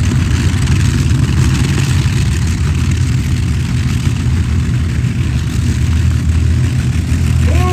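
Three V12 engines of a multi-engine modified pulling tractor running steadily while it stands still, a loud, heavy, deep rumble.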